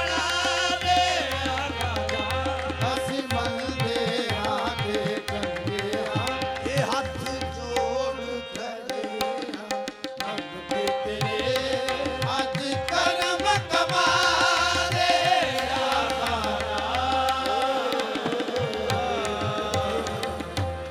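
Qawwali music: tabla drumming under a held harmonium note, with voices singing over it in stretches. It fades out near the end.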